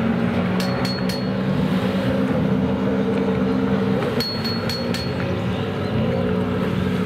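Racing jet ski engines running hard at high revs, a steady drone whose pitch shifts a little around the middle, with a few short clinks.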